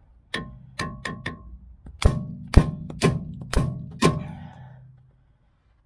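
Steel hammer striking the tie rod end joint on a VW Golf Mk2's front steering, trying to shock the tapered ball stud loose: nine ringing metal blows, four lighter ones, then five heavier ones about half a second apart. The stud does not come free.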